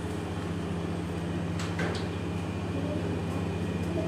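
Automatic roti-making machine running: its electric-motor drive gives a steady low hum, with a brief click partway through.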